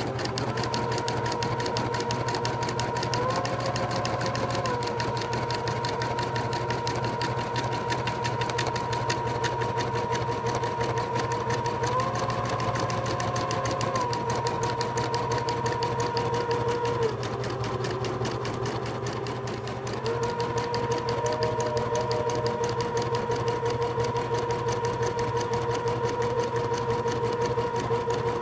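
Home embroidery machine stitching lettering into a lab coat: rapid, even needle strokes over a steady motor whine. The whine steps up in pitch briefly twice and drops lower for a few seconds past the middle.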